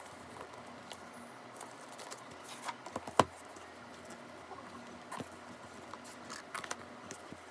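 Light handling noises: scattered small clicks and taps, with one sharper knock about three seconds in and a quick cluster of clicks near the end.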